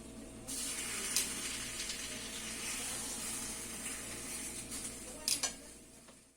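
Poblano peppers sizzling in melted butter in a frying pan, a steady hiss with a few sharp clinks about a second in and again near the end, then fading out.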